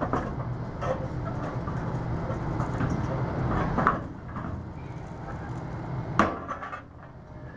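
Link-Belt 330LX excavator's diesel engine running steadily while its hydraulic scrap shear bites into and shoves sheet-metal scrap, giving sharp metal clanks and crunches; the loudest comes about four seconds in and again about six seconds in.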